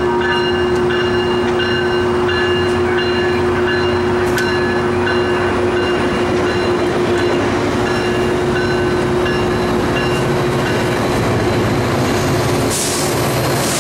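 Tri-Rail commuter train's bilevel passenger coaches rolling past close by: a steady hum with wheel-on-rail rumble. A grade-crossing bell rings in a steady repeating pattern, fading over the first several seconds, and two short hissing bursts come near the end.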